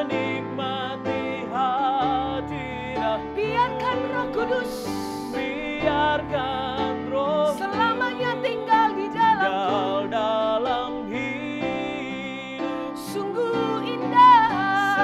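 A man and a woman singing a slow worship song in wordless, ornamented runs over held instrumental chords.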